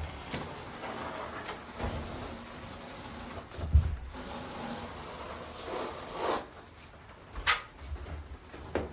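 Notched steel trowel scraping and spreading thinset mortar over cement backerboard in uneven strokes. There is a dull knock about four seconds in and a sharp click about seven and a half seconds in.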